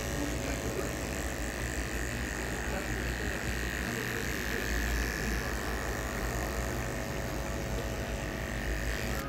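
Electric hair clippers running steadily with a thin high whine while cutting short hair at the side of the head.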